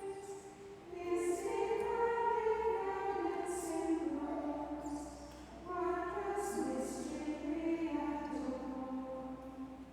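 A choir of nuns singing a liturgical chant in long, sustained phrases, with short pauses between phrases about half a second in and again about five seconds in.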